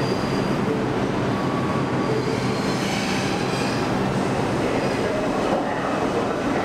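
New York City subway train running through the station: a steady rumble of wheels on rail with faint, thin wheel squeals coming and going.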